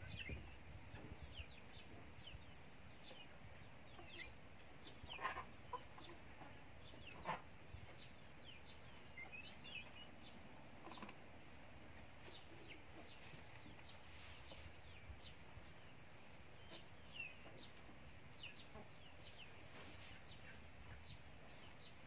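Chickens clucking quietly, with many short high chirps scattered all through and a few louder calls about five and seven seconds in.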